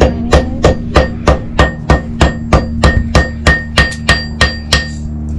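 Blacksmith's hammer striking iron on an anvil in a steady rhythm, about three ringing blows a second, stopping near the end: forging a steel fire striker.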